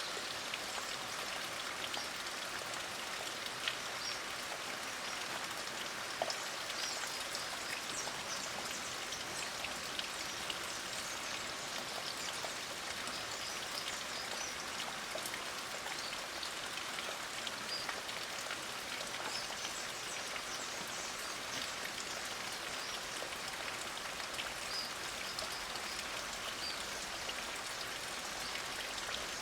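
Light rain falling steadily, with many scattered drop ticks.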